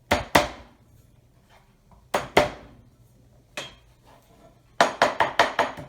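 Garlic cloves being crushed with a knife blade on a cutting board: sharp whacks, mostly in pairs, then a quick run of about eight strikes near the end.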